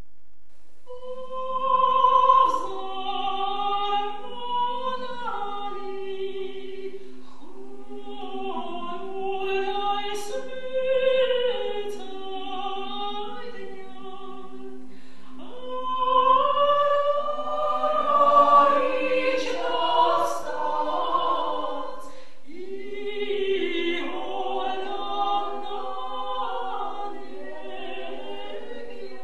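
Women's choir singing a sacred chant without instruments, in phrases with short pauses between them, over a steady low drone note held beneath the melody.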